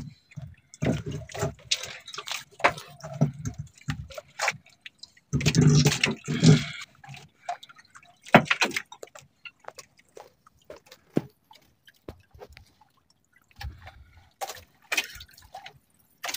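Water dripping and splattering from a freshly caught squid and a wet squid-jigging handline, in irregular drips and small splashes with a denser burst of splashing about five seconds in.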